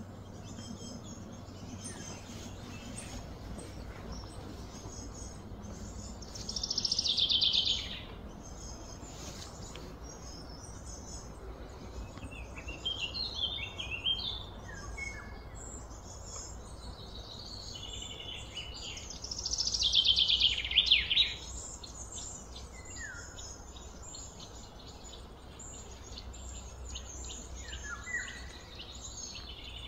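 Outdoor ambience of birds chirping and calling, with two louder buzzing trills that fall in pitch, about 7 and 20 seconds in, over a steady low background hum.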